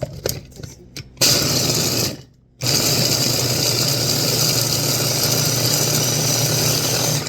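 Electric blender motor grinding a batch of nuts for peanut butter: a short pulse about a second in, a brief stop, then running steadily until it cuts off at the very end.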